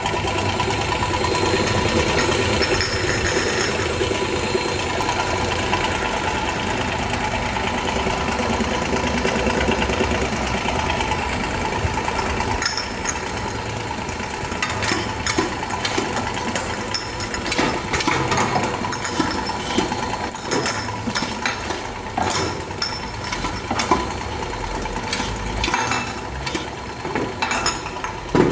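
KL-700 automatic round-bottle labeling machine running steadily, its belt conveyor and drive motors making a continuous mechanical hum. From about halfway on, glass jars clink and click irregularly as they pass through the conveyor guides and labeling head.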